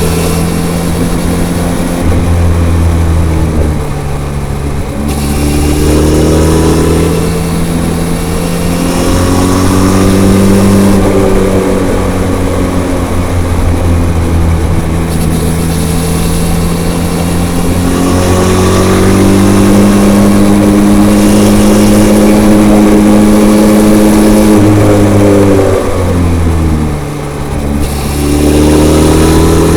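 Benelli TRK 502's parallel-twin engine through its stock, unmodified exhaust while riding, the revs rising and falling repeatedly through the curves. Near the end the engine note drops sharply, then climbs again.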